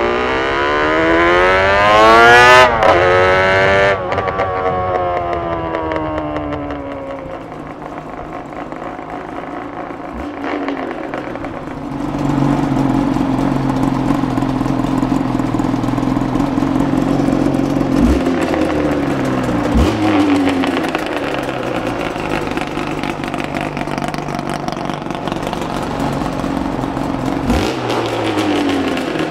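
Yamaha RZV500R's 500cc two-stroke four-cylinder engine revving up hard, the revs breaking off and falling away as it slows, then running steadily at low revs with a few short throttle blips.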